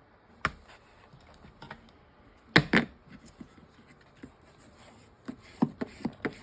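Sharp taps and knocks of a book cover and papers being handled and pressed into place on a worktable: one knock about half a second in, a louder double knock a little past two and a half seconds, then a quick run of lighter taps near the end.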